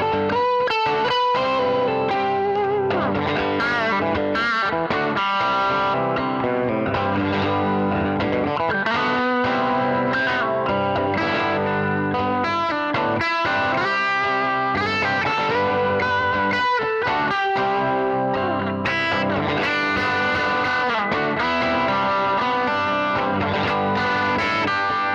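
Electric guitar with P90 pickups played through a Marshall SV20C Studio Vintage 1x10 valve combo set to a crunch tone: a mix of chords and single-note lines with bends and vibrato.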